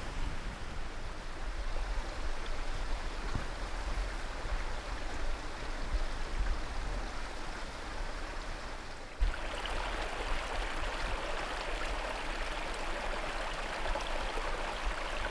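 Steady outdoor rushing hiss, like running water or wind, with wind rumbling on the microphone; about nine seconds in the hiss changes abruptly to a brighter, louder one at a cut.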